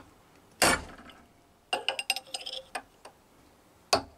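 Big hammer striking a brass drift to drive a new ball bearing onto a shaft held in a vice. There are two heavy, ringing blows, one just under a second in and one near the end, with a quick run of lighter metallic taps and clinks between them.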